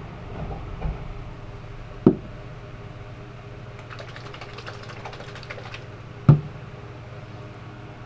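A steady electric hum, with two sharp knocks about four seconds apart and a quick run of light clicks between them.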